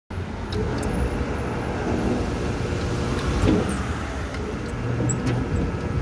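Gate barrier operator's electric motor and gearbox running steadily, turning the output shaft and its limit-switch cam, with a few light ticks.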